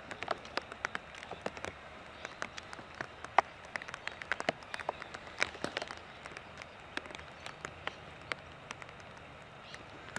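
Rain falling: a soft steady hiss with many irregular, sharp drop ticks close by, one louder tick about a third of the way in.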